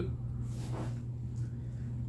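Steady low hum with a couple of faint, soft mouth sounds of chewing crispy fried chicken wings.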